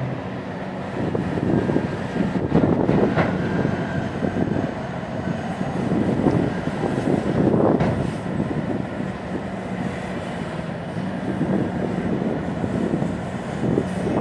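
A Bucyrus RH120E hydraulic face shovel working as it loads earth into a Komatsu 785 dump truck: a heavy, steady rumble of big diesel machinery that swells and eases several times, with a couple of sharp knocks.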